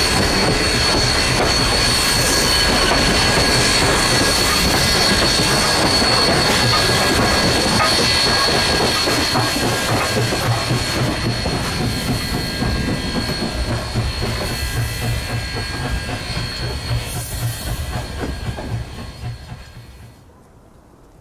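Passenger train behind Tangshan-built steam locomotive #3025 rolling past, its wheels clicking over the rail joints with a steady high wheel squeal. The sound fades as the train moves away, then drops out abruptly about a second before the end.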